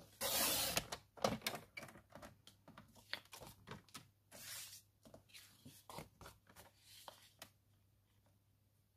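Sliding-blade paper trimmer cutting through pink cardstock. There is a loud swish about a quarter second in and a shorter one around four and a half seconds in, with clicks and paper being shifted and tapped on the trimmer between them.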